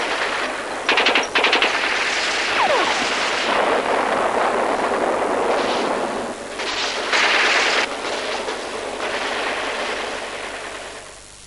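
Battle gunfire: a rapid burst of automatic fire about a second in, then a dense din of shooting with further surges, fading out near the end.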